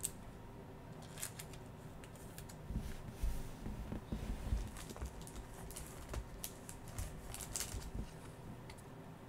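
Faint rustling and light plastic clicks of a trading card being handled and slid into a penny sleeve and top loader, with a few soft thumps around the middle.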